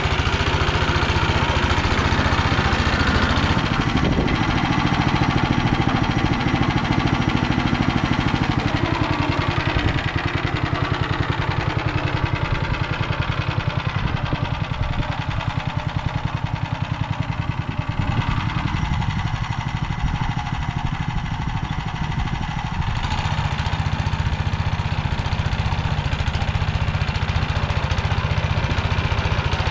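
Motor Sich walk-behind tractor's engine running steadily as it pulls its narrow rotary tiller through the soil between blueberry rows. It gets a little quieter in the middle as the machine moves away, then louder again near the end as it comes back.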